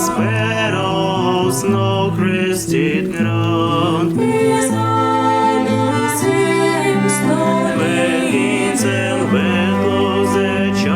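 A vocal quartet singing in close harmony, several voices holding sustained chords over a low bass part, with sung consonants audible.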